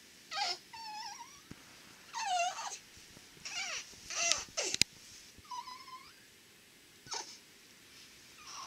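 Newborn baby squeaking in her sleep: a run of short, high squeaks, several wavering or sliding up and down in pitch, with quiet gaps between.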